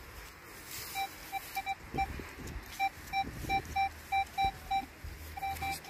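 Minelab Equinox metal detector beeping as its coil passes over a freshly dug hole. About fifteen short, identical mid-pitched tones come in uneven singles and pairs, signalling a metal target still in the hole.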